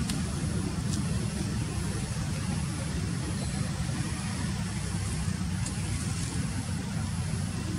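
A steady low rumble with a faint hiss above it.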